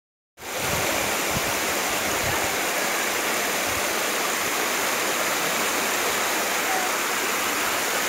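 Shallow mountain river rushing steadily over stones and rocks.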